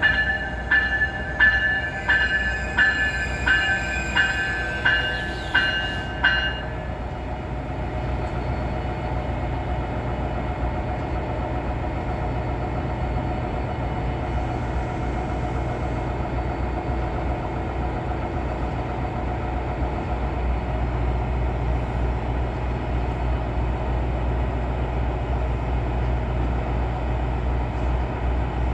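Siemens Charger diesel locomotive pulling into a station. Its bell rings about ten times, steady and evenly spaced, over the first six seconds and then stops, leaving the steady low sound of its Cummins diesel engine running. The engine grows a little louder about two-thirds of the way through.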